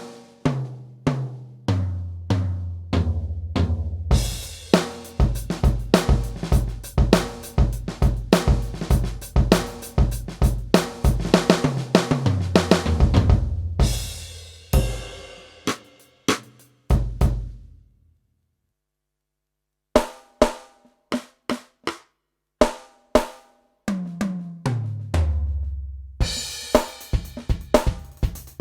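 Yamaha DTX720K electronic drum kit, its DTX700-series module sounding a drum-kit voice: a fill stepping down in pitch across the toms, then a groove of kick, snare, hi-hat and cymbals that ends on a crash and stops. After about two seconds of silence come a few single hits and another tom fill, and a cymbal-heavy groove starts again near the end.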